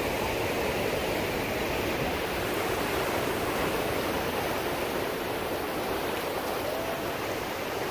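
Ocean surf breaking and washing up the beach: a steady, even rushing hiss.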